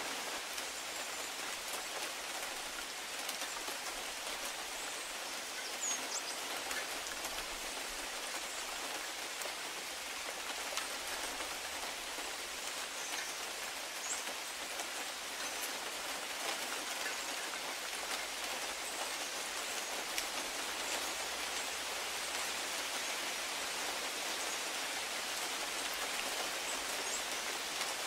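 Steady rain falling on a conifer's foliage and a grass lawn: an even hiss with a fine patter of individual drops.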